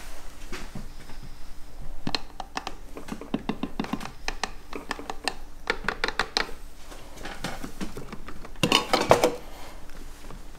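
Small metal parts and tools clinking and knocking, a string of light taps with a louder clattering rattle near the end.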